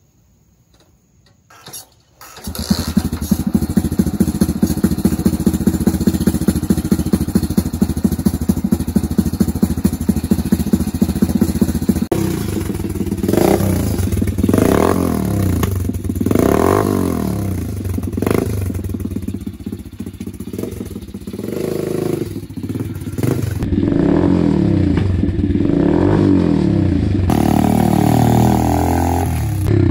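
A 125cc pit bike's single-cylinder engine starts about two seconds in and idles steadily, running after its clogged carburetor jets were cleaned. From about halfway through the throttle is blipped in several rising and falling revs, and near the end the bike pulls away, the pitch climbing and dropping as it goes up through the gears.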